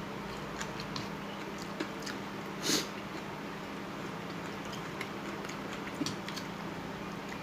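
Close-up eating sounds from a bowl of noodle soup: soft chewing with scattered small clicks, and one short louder noisy sound a little before three seconds in. A steady low hum runs underneath.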